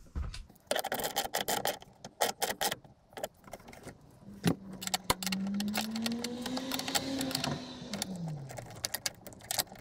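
Metal clinking and clicking as a cable lug and spanner work on the SmartShunt's brass battery-minus terminal. Partway through, a steady hum sets in that slowly rises in pitch and then falls away, like a vehicle engine passing.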